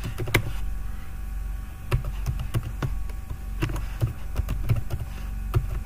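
Computer keyboard being typed on in scattered, irregular keystrokes as an email address is entered, over a steady low hum.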